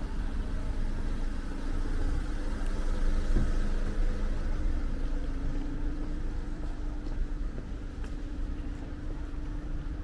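A car engine running nearby, a steady low hum over a rumble that swells a little a few seconds in and eases near the end.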